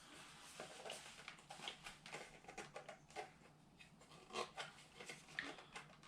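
Faint handling noises of unpacking: scattered light rustles and small knocks, the loudest about four and a half seconds in.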